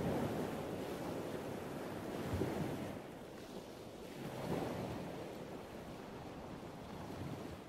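Rushing outdoor ambience of wind and water, swelling and easing every couple of seconds.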